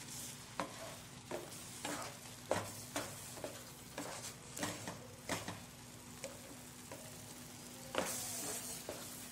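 A spoon scrapes and taps in a frying pan in irregular strokes as thick mango semolina halwa is stirred. The halwa sizzles softly underneath, a little louder near the end.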